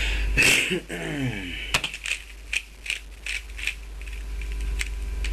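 Plastic clicks of a Dayan Guhong 3x3 speedcube being turned by hand: sharp, irregular clacks, about two or three a second. A short sound falling in pitch comes about half a second in.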